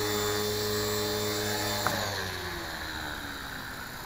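Electric 450-size RC helicopter (Tarot 450 Pro V2) running with a steady motor and rotor whine, then about two seconds in a click and the pitch falls away as the rotor spools down.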